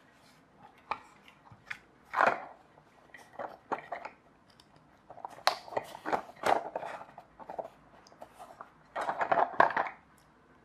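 Irregular clicks, scrapes and rustles of hand handling: CD wheels on wooden skewer axles being pushed into 3D-printed plastic axle mounts on a cardboard chassis. The handling comes in short bursts and is loudest near the end.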